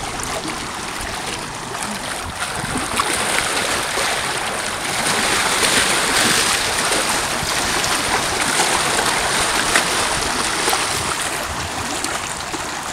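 Small waves lapping and washing among shoreline boulders, a steady watery hiss that grows louder for several seconds in the middle.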